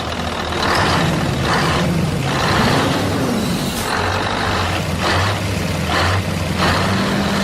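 Engine of a mini tractor or model vehicle running, its pitch rising and falling, with repeated bursts of hiss on top.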